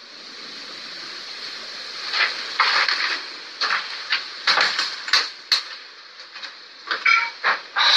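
A steady hiss with a scatter of short, irregular scrapes and knocks, more of them from about two seconds in and again near the end.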